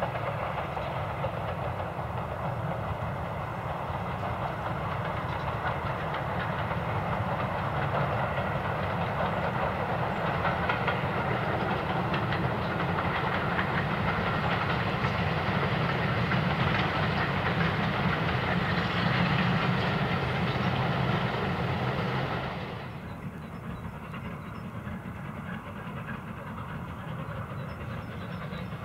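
Steam locomotive hauling coaches past, with the train's running noise and rolling wheels growing steadily louder as it approaches. About 22 seconds in, it cuts abruptly to a quieter, more distant train.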